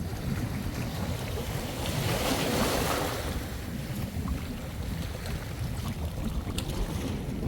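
Small sea waves washing onto the shore, one wash swelling up about two seconds in, with wind buffeting the microphone.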